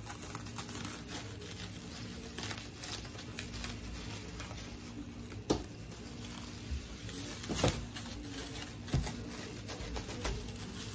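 Quiet handling sounds as cakes are moved about on a kitchen counter: soft rustling, with three sharp knocks at about five and a half, seven and a half and nine seconds in, over a steady low hum.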